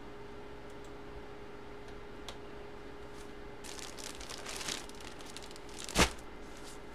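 Clear plastic bag around a packaged jersey crinkling as it is handled, from about three and a half seconds in, then a single sharp knock about six seconds in, over a steady faint hum.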